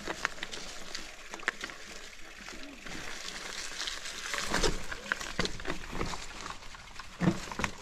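Rustling and crackling of dry leaves and twigs on a forest trail, with many small clicks.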